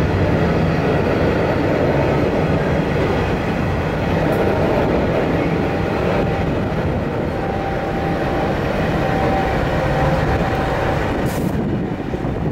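Empty coal hopper wagons rolling past on the rails: a steady rumble of steel wheels on track.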